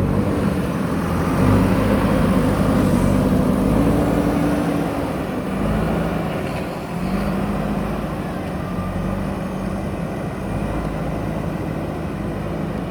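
JCB backhoe loader's diesel engine running hard under load, easing briefly about seven seconds in, then pulling again.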